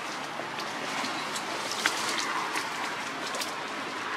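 Leaves and twigs rustling and crackling as someone moves through forest undergrowth, with a few sharp snaps, the loudest about two seconds in.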